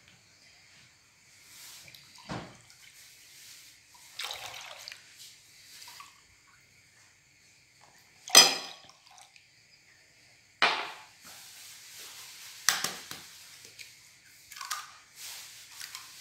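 Milk and thick fresh cream being poured and squeezed from small pots and cartons into a glass bowl, dripping and plopping, with a few sharp knocks, the loudest about eight seconds in.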